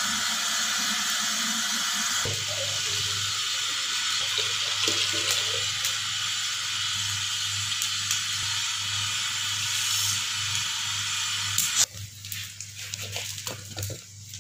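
Steady hissing of a steel pot heating over a wood fire, with a low hum under it. Near the end it cuts off abruptly, giving way to light clinks and scraping as tea is stirred in a steel pot.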